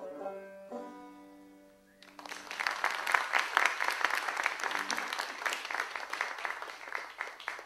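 A banjo plays the last notes of a tune and a final chord rings out. About two seconds in, the audience breaks into applause that lasts about five seconds.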